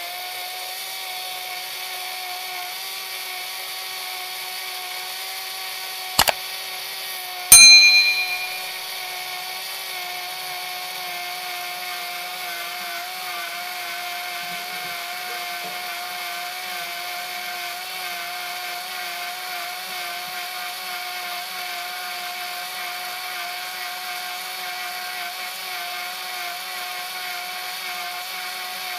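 Electric countertop blender running steadily, its motor a constant hum as it blends fruit and water into juice. About six seconds in there is a sharp click, and a second later a louder, ringing clang.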